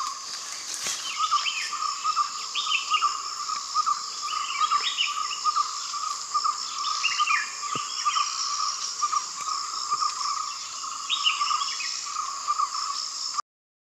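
Forest insect chorus: a steady high buzz over a lower pulsing trill, with a bird giving short falling call phrases every few seconds. It cuts off suddenly near the end.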